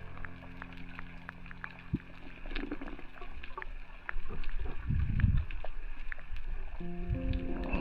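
Water noise: scattered crackling clicks and a couple of low sloshing rumbles around the middle, with background music at the start and again near the end.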